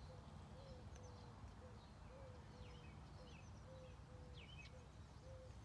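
Near silence with faint birdsong: scattered short high chirps over a soft low note repeated a few times a second.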